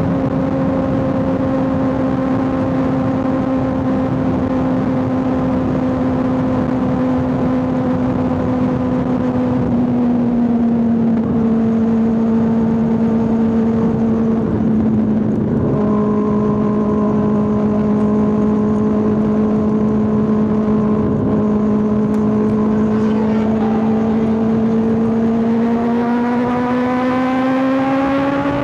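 Kawasaki ZX6R 636 inline-four motorcycle engine running at a steady highway cruise under wind rush, its note sagging slightly with a short break about halfway through. Over the last few seconds the revs climb steadily as it accelerates.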